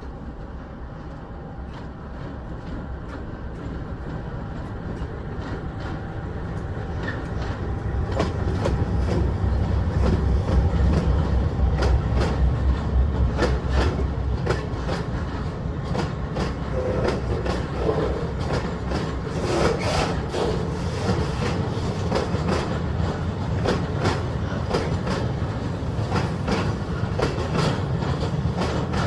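A train approaching and passing close by: a deep rumble builds over the first ten seconds or so, then the wheels clatter steadily over the rail joints for the rest of the time.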